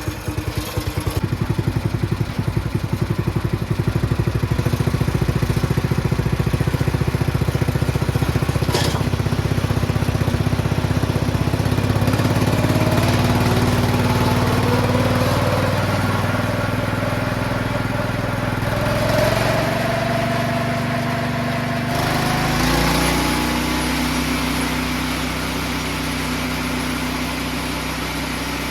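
A sawmill machine's engine running just after a hard restart, with an even pulse at first; a whine rises slowly in pitch from about twelve seconds in, and the sound changes abruptly about twenty-two seconds in.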